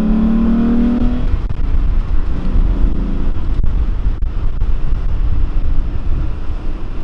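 Stock 2.8-litre VR6 engine of a Golf Cabrio accelerating, its note rising in pitch. About a second in, the engine note drops away and leaves a low rumble and road noise.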